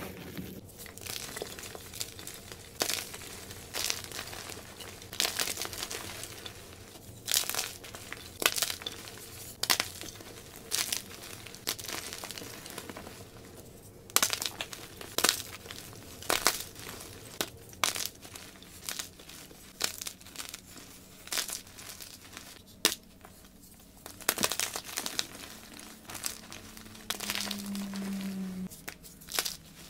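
Blocks of white gym chalk crushed and snapped apart by hand in a bed of loose chalk powder: irregular dry crunches and sharp snaps, with soft crumbling between them.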